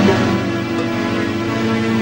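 Background film-score music: a chord of steady tones held through, with no new notes struck.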